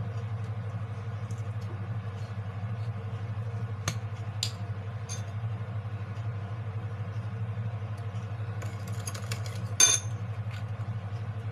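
A steady low hum runs throughout, with light clinks of a metal spoon and small bottles against a ceramic bowl, a few about four seconds in, then a quick run of them ending in a sharp clink near the end.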